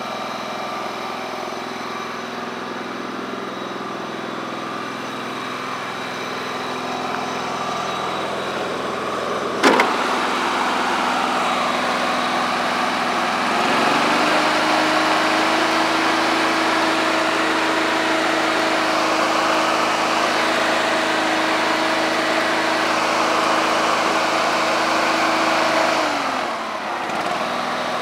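John Deere LX188 lawn tractor engine running steadily at low speed, with one sharp click about a third of the way in. Around halfway it speeds up to a higher, steady pitch, then drops back near the end.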